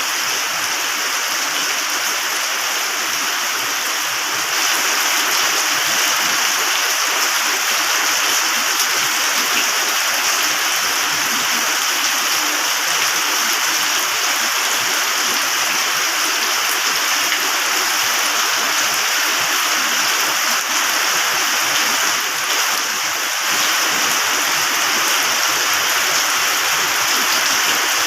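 Steady rushing water, a dense even hiss with no thunder, stepping up a little in loudness about four seconds in.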